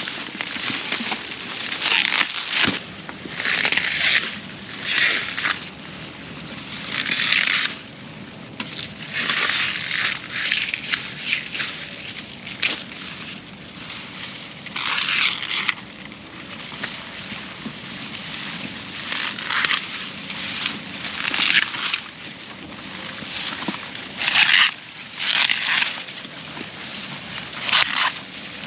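Repeated crunching and rustling in irregular bursts, one every second or two.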